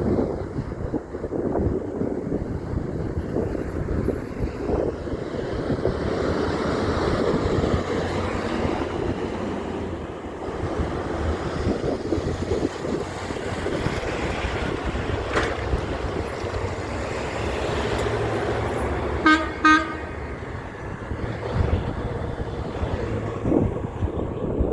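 Heavy truck engine noise and traffic rumble with wind on the microphone, cut by two short blasts of a truck horn in quick succession late on.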